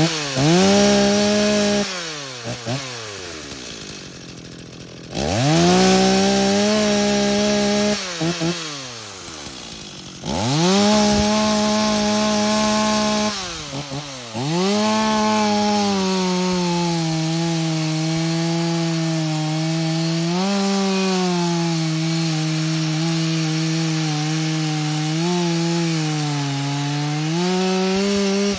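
Stihl MS 260 C two-stroke chainsaw revved to full throttle three times, dropping back to idle between. Then, for the second half, it is held under load with its pitch sagging and wavering as it cuts into wood.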